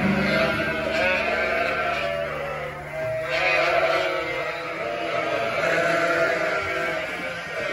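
A pen of young lambs bleating over one another: a steady chorus of many overlapping high calls.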